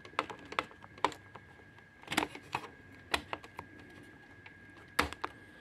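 Irregular light clicks and taps of plastic parts as the waste-ink tubes are pushed and seated into the plastic guides inside an inkjet printer's housing; the loudest click comes near the end.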